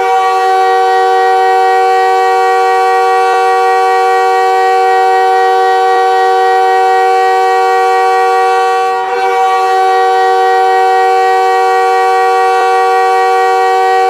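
Montreal Canadiens' goal horn blowing one long multi-tone chord that starts abruptly. It dips briefly about nine seconds in, then sounds again.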